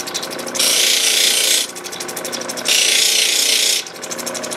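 An opal being ground against a lapidary wheel, making two rasping strokes of about a second each, roughly two seconds apart, with a fast ticking between them.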